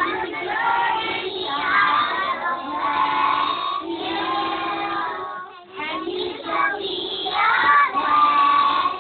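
A group of young preschool children singing a song together in unison, with a brief pause a little past halfway.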